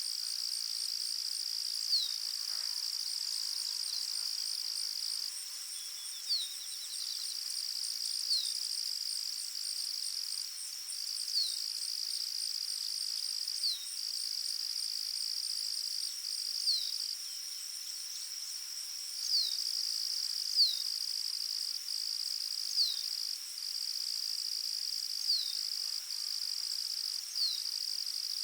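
Forest ambience: a steady high-pitched insect trill, cricket-like, with a short falling chirp repeating about every two seconds, likely a bird calling.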